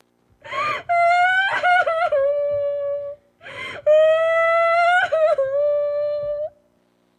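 A person crying: two long, high-pitched wails. Each begins with a breathy sob, wavers and breaks partway through, and trails off slightly lower.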